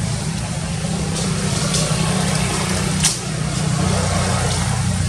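A steady low rumble, like a motor running, with a few short faint clicks.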